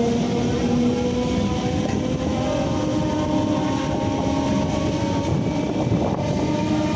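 Electric local train running, heard from its open doorway: a steady rumble of wheels on the rails with the electric traction motors' whine, several tones that shift in pitch as the train moves along.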